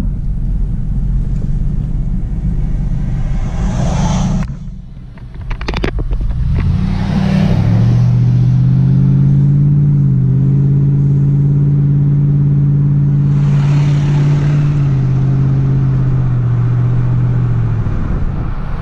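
Pickup truck driving, heard inside the cab: steady road and engine rumble, then a brief dip with a few clicks about five seconds in, after which the engine note rises as the truck speeds up and settles into a steady drone.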